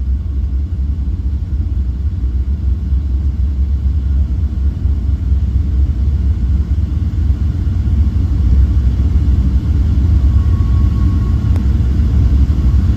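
Steady low rumble inside the cabin of a Boeing 777-300ER rolling on the ground just after landing, with spoilers still raised. It grows a little louder about two thirds of the way through.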